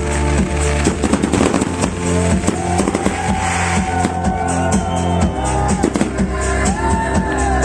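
Loud music with a steady bass line, with fireworks crackling and banging over it throughout.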